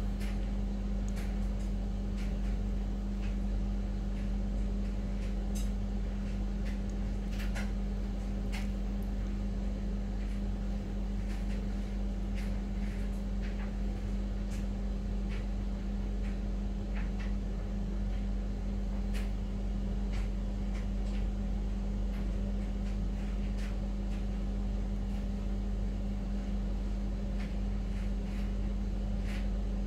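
Steady electric hum of aquarium equipment, with one strong low tone, and faint clicks scattered through it.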